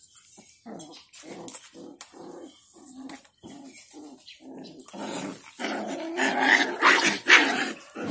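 Aspin puppies play-fighting and growling in short bursts, about three a second, building into a louder, denser tangle of growls and yips in the last few seconds.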